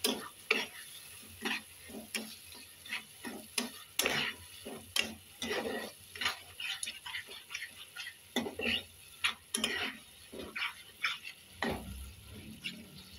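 A spatula stirs and scrapes thick tomato masala around a kadai in short, uneven strokes, roughly two a second. A light sizzle of the frying masala runs beneath the strokes.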